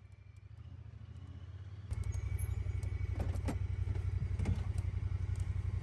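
UTV engine running steadily at a low, even pulse, suddenly louder about two seconds in.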